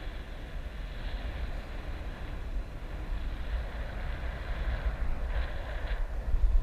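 Wind buffeting a GoPro's microphone during a parasail flight: a steady rushing noise with an uneven low rumble.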